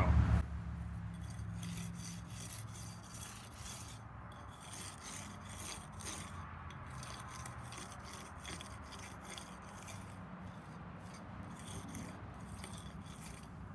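Round brick jointer scraping along the horizontal mortar joints of a brick wall in quick repeated strokes, about three a second, smoothing mortar that has partly set.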